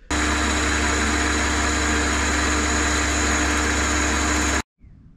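Chester bench metal lathe running with its chuck spinning a workpiece: a steady motor hum with a constant whine over it. It cuts off suddenly about four and a half seconds in.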